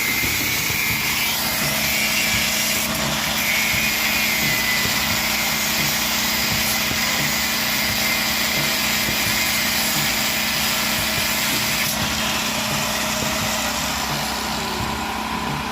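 A small engine running steadily and without a break.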